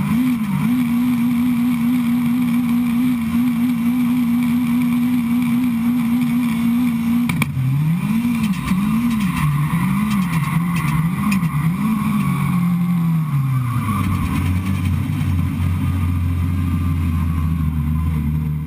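650-horsepower 2011 Ford Fiesta gymkhana car's turbocharged four-cylinder engine, heard close up from the hood. It is held at high steady revs for about seven seconds, then revved up and down about five times, then drops to low steady revs near the end.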